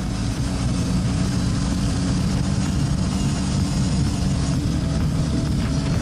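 Kawasaki Brute Force 650 ATV's V-twin engine running steadily while riding along a dirt trail.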